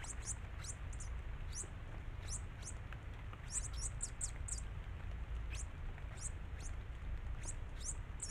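Red-crested finches giving high, thin chirps, short and irregularly spaced, with several close together about three and a half seconds in, over a low steady rumble.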